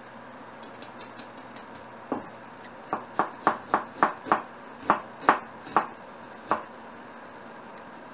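Chef's knife slicing an onion on a wooden cutting board: a run of about a dozen sharp knocks of the blade on the board, roughly three a second, starting about two seconds in and stopping well before the end.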